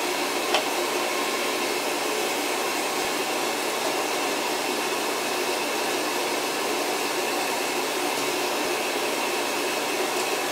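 A heater running, making a steady rushing noise with faint hums in it. A light click about half a second in.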